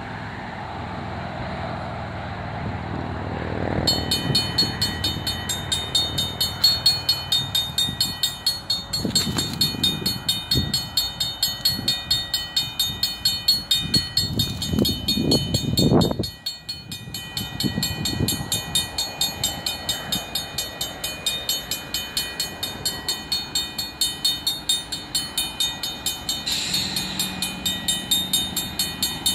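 Safetran mechanical crossing bell starting about four seconds in and ringing with rapid, even strokes as the crossing signals activate for an approaching train. A low rumble swells beneath it midway and cuts off abruptly.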